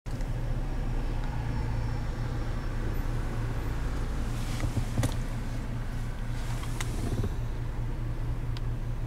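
A car running: a steady low rumble, with three sharp clicks in the second half.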